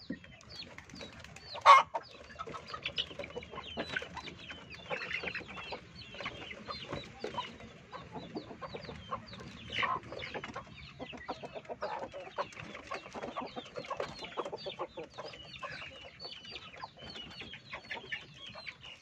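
Domestic chickens clucking and calling, with many short, high chirps throughout and one loud, sharp sound about two seconds in.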